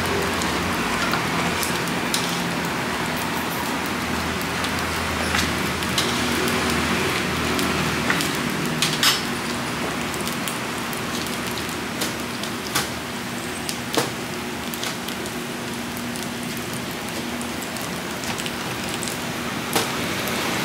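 Vegetable-and-egg pancakes sizzling steadily in shallow oil on a flat steel griddle. A few sharp clicks of metal tongs and utensils are scattered through it, and a low hum fades out about eight seconds in.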